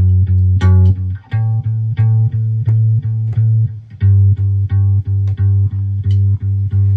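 Electric bass guitar playing a steady run of repeated plucked low notes, about three a second, shifting to a new note about a second in and again near four seconds.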